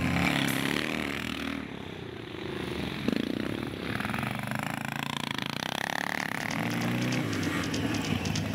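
Vintage motocross motorcycle engines revving as the bikes ride the dirt track, their pitch rising and falling with the throttle, with a sudden burst of throttle about three seconds in.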